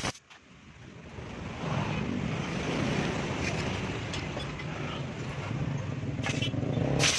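Motorcycle engine running steadily, building up over the first couple of seconds, with a sharp crack just before the end.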